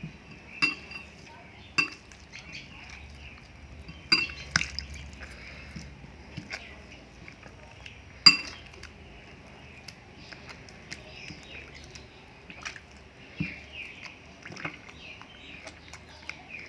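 Hands mixing wet semolina and curd batter in a glass bowl: soft wet squishing with irregular clicks and clinks against the glass, the sharpest about eight seconds in.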